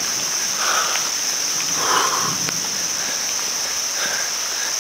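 Crickets in a steady high-pitched chorus over the hiss of rain.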